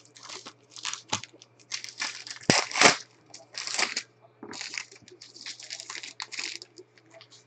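Foil wrappers of Bowman Chrome baseball card packs crinkling and tearing as packs are ripped open and the cards inside handled. A run of short crinkly rustles, loudest twice near the middle.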